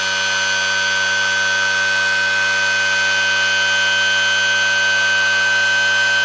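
Rebuilt electromagnetic pulse motor spinning at high speed on both battery banks, its coils pulsed at about 760 Hz, giving a steady high-pitched whine with many overtones that grows a little louder.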